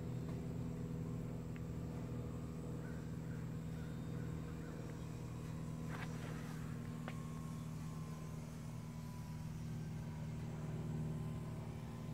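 Steady low hum of a car engine idling close by, with two sharp clicks about halfway through.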